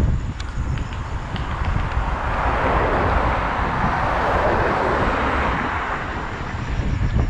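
A motor vehicle passing on the road, its noise swelling up and fading away over about four seconds, over a steady rumble of wind on the microphone.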